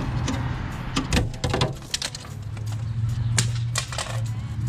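Chrome BMW kidney grille being pulled out of the hood, its plastic retaining tabs clicking and snapping as it comes free, with one clip breaking. A steady low hum runs underneath.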